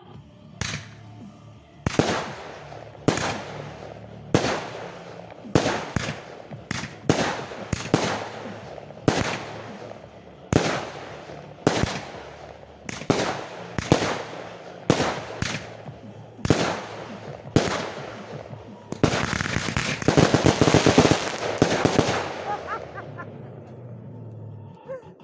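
Fireworks display: aerial shells bursting in a string of sharp bangs, about one or two a second. Near the end comes a dense, rapid crackling salvo lasting about three seconds that then fades away.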